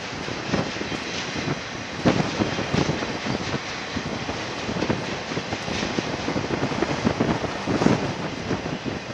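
Union Pacific intermodal freight train's double-stack container cars rolling along the track, a steady rolling noise of wheels on rail with irregular knocks and bumps.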